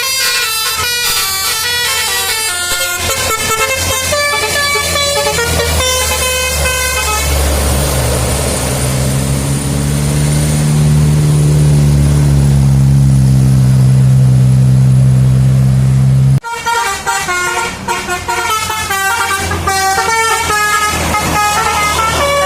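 Bus telolet (Basuri) musical air horns playing a rapid tune of quickly changing notes. Partway through, a bus engine runs loud and close for about nine seconds, its pitch rising and then falling, and cuts off suddenly. The horn tune then starts up again.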